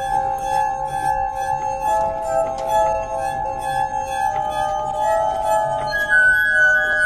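Glass armonica playing slow, overlapping sustained notes: pure ringing tones that change pitch every second or two, with light clicking behind them.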